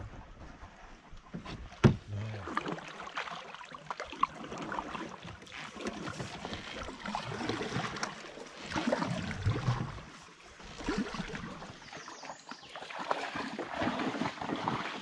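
A loaded canoe moving through shallow water: water sloshing and splashing around the hull and paddle, with a sharp knock about two seconds in.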